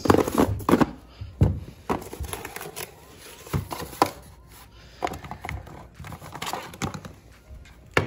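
Small cardboard box being opened and handled, with rustling and several light knocks as the power adapter and its cords are lifted out.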